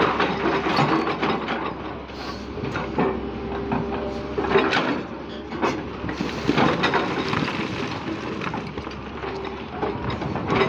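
JCB backhoe loader digging: the diesel engine runs steadily under an irregular clatter of knocks, scraping and crunching as the bucket works through soil and stones.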